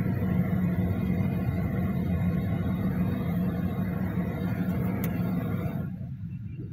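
Car driving along a town street, heard from inside the cabin: a steady rumble of engine and road noise. Near the end the sound abruptly turns quieter and duller.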